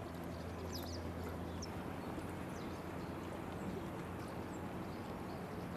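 Outdoor town ambience: a steady low hum under a general background wash, with a few short, high chirps of small birds, most of them in the first two seconds.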